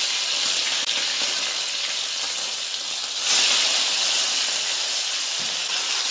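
Small marinated fish frying in hot oil in a wok: a steady, loud sizzle that swells again about three seconds in.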